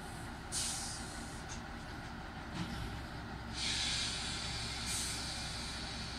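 Compressed air hissing from railway locomotives' air systems in bursts: a short one about half a second in, another briefly in the middle, then a longer, louder hiss lasting over a second. Under it runs a steady low rumble.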